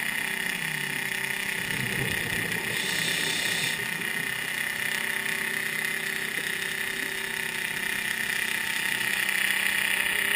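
Underwater ambience: a steady drone of a boat engine carried through the water, with a band of hiss over it. A brief rush of higher hiss about three seconds in.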